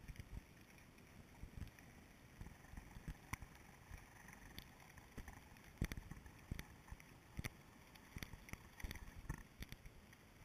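Faint, muffled underwater sound picked up through a GoPro's waterproof housing hanging deep under lake ice: a low rumble with scattered, irregular soft knocks and clicks.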